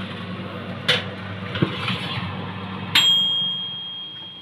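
Oven door and metal baking tray being handled: a couple of light clicks and knocks, then a sharp metallic ding about three seconds in that rings on for over a second, over a low steady hum.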